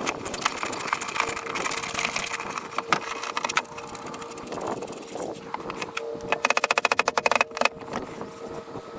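Work noise from fitting boat seat hardware: scattered clicks and knocks over a faint steady hum. About six seconds in comes a fast, even run of loud clicks, about a dozen a second, lasting about a second.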